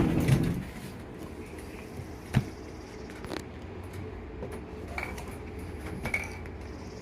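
Cups being handled on a table: a clatter at the start, then a sharper knock and a few light clicks as the cups are set down and pressed together. A low, steady hum lies underneath.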